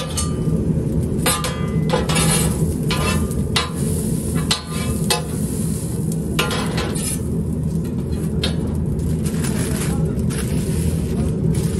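A long knife and a steel toast press scraping and clinking on a flat steel griddle while iron toast is cut on it, in many short strokes over a steady low hum.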